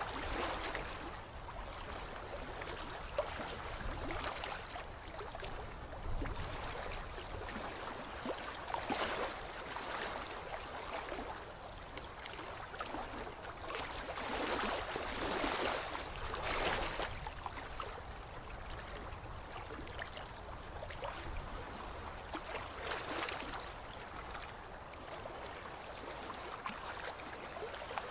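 Boat-ride water ambience: water trickling and lapping steadily, swelling louder several times, most strongly around the middle.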